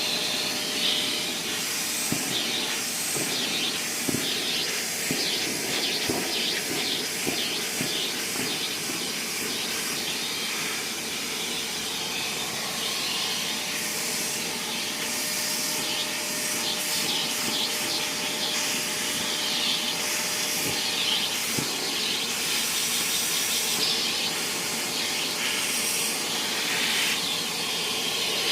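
Vacuum cleaner running steadily as a cat is vacuumed, a continuous suction hiss with a faint motor hum underneath, the hiss shifting as the nozzle moves over the fur.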